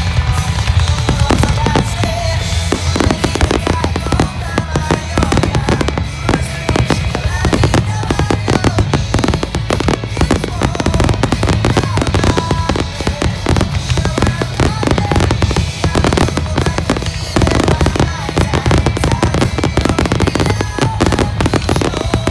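Fireworks grand-finale barrage: a continuous, dense rapid-fire stream of shell bursts and crackling with a deep rumble underneath, with no let-up.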